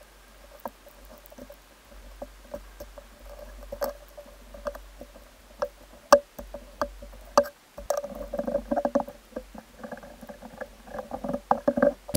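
Wet foam filter sponges being handled and pulled off a pond filter's plastic mesh tube: scattered knocks and clicks, with busier bursts of rubbing and squelching about two thirds of the way through and again near the end.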